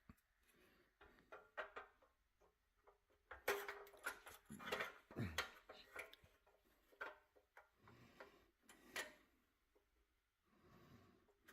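Faint, scattered clicks and light knocks, with a busier cluster of clatter about four to five seconds in.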